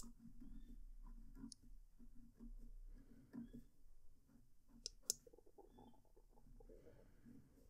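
Wing Sung 698 fountain pen with a fine gold nib writing on paper, picked up close to the page: faint scratchy nib strokes with varying pressure to bring out line variation. There are two sharp clicks about five seconds in.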